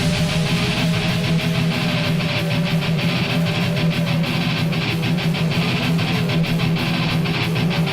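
Heavy metal music: strummed, distorted electric guitar over a fast, steady drum beat.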